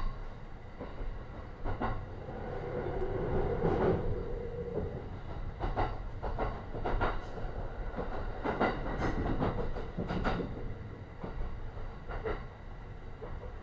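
Running sound of a JR East E235-1000 series electric train heard from inside a Green (first-class) car: a steady low rumble with wheels clicking over rail joints, the clicks coming thickest from about six to eleven seconds in. The train is nearing a station stop.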